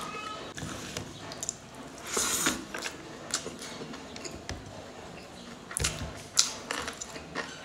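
Eating by hand: fingers squishing and mixing rice and curry on a plate, with wet chewing and lip smacks. A few sharp smacks and clicks stand out, the loudest about six seconds in.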